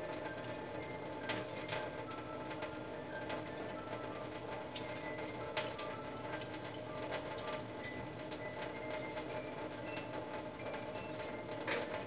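Tap water running in a stainless steel sink and splashing over a small parrot being bathed, with scattered sharp drip and splash clicks. Steady faint music plays underneath.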